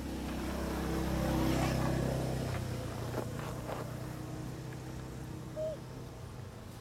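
A motor vehicle engine running past, growing louder over the first second and a half and then slowly fading away. A short high chirp sounds near the end.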